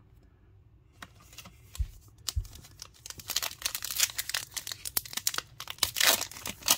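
A 2022 Donruss baseball card pack's wrapper being torn open by hand, crinkling and crackling. The tearing starts about three seconds in, after a couple of soft thumps, and is loudest near the end.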